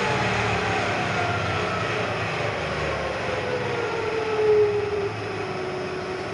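Bridgeport Series 1 2 HP vari-speed J-head milling machine running while its speed-change dial is turned: the drive whine slides steadily down in pitch as the spindle slows, swelling briefly past the middle. The spindle slowing as the dial is turned fits the speed changer being assembled backwards.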